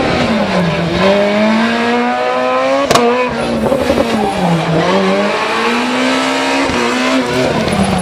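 Rally car engine revving hard through a tight course, its pitch repeatedly climbing and then dropping as the driver shifts and lifts for the turns. There is one sharp crack about three seconds in.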